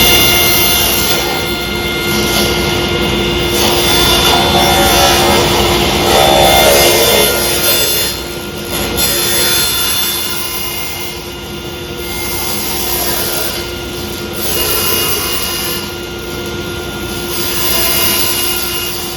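Table saw running and cutting through a sheet of plastic laminate. A steady whine holds through the first several seconds, then gives way to a rougher, wavering cutting noise.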